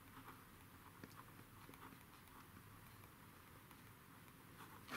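Faint pen writing on paper, small scratches and ticks barely above room tone.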